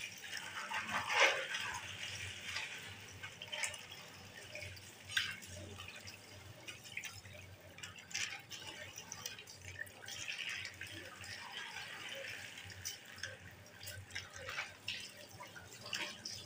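Tap water running and splashing unevenly while hands are washed with soap under it, with frequent small splashes and drips.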